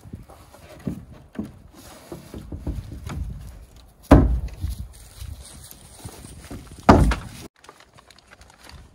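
Building work on a wood-framed wall: two loud knocks about three seconds apart, with lighter knocks and handling noise between them.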